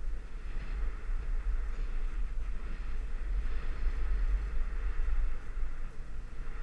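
Wind buffeting the microphone of a camera moving fast downhill, a steady low rumble, over an even hiss of a board or ski edges sliding on groomed snow.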